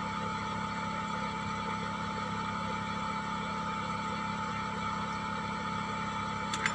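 Steady, unchanging machine hum with a constant thin whine above it, and a faint click near the end.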